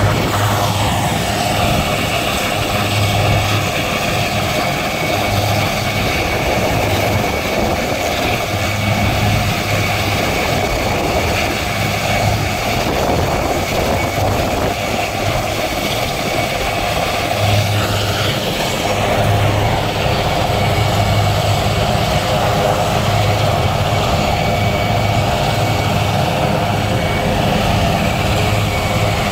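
Two RAF Puma helicopters running on the ground with rotors turning: a loud, steady turbine whine with a thin high tone over the churning of the rotor blades.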